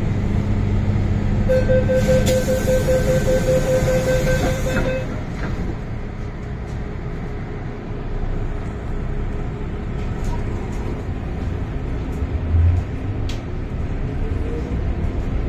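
MTR Island Line M-Train: the door-closing warning sounds as a rapid string of short beeps at one pitch for about three seconds, then the train runs with a steady rumble as it pulls away. Near the end there is a single knock, and the traction motors' whine rises in pitch as the train gathers speed.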